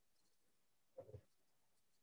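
Near silence: room tone, with one faint, brief low sound about a second in.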